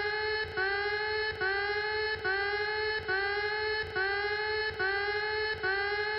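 Repeating electronic alarm tone of a mock Emergency Alert System warning: about seven beeps, each just under a second long with a short gap between them, sliding up slightly in pitch as each begins.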